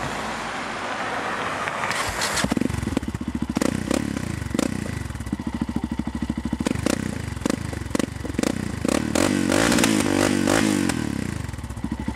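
Yamaha MT-03's single-cylinder engine catches about two seconds in and runs through a Takkoni aftermarket silencer with a rapid, crackling exhaust beat. It is given repeated throttle blips, held higher for a moment near the end, then drops back to idle.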